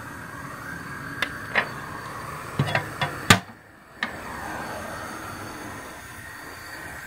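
Light metal clicks and clunks of a steel boiler firebox door being swung shut and latched, the loudest about three seconds in, over a steady background hiss. The sound drops out briefly just after the loudest clunk.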